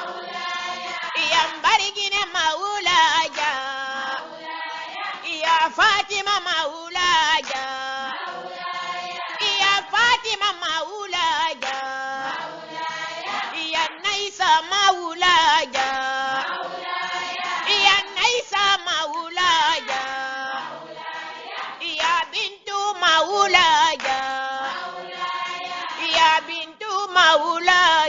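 A group of high voices singing an Islamic devotional chant in the Soussou language, with wavering held notes.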